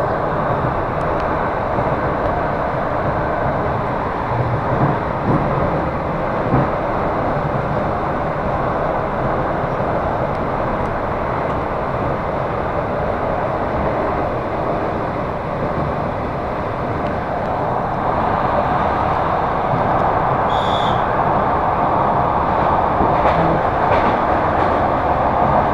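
Suburban electric train running at speed, heard from inside the carriage: a steady rumble of wheels on rails, with a few knocks about five seconds in and a brief high-pitched tone about twenty seconds in.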